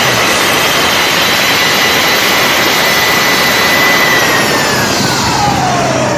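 Boat engine running at speed under loud rushing wind and water noise, with a high steady whine that slides down in pitch over the last two seconds.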